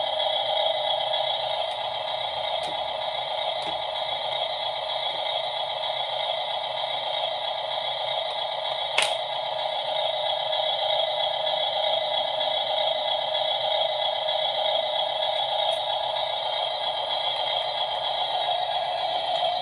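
Small electric motors of a 1/16-scale RC excavator model running steadily, with a single sharp click about nine seconds in.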